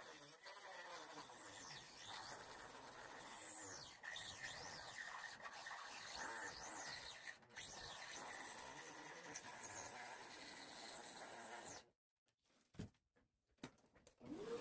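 Handheld rotary tool with a cut-off disc running against the wooden stern of a model ship hull. It makes a thin, high whine that rises and falls in pitch, and it cuts off suddenly about twelve seconds in.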